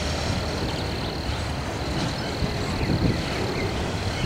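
Autorack freight cars rolling slowly past, their steel wheels rumbling on the rails with occasional clunks, the loudest about three seconds in.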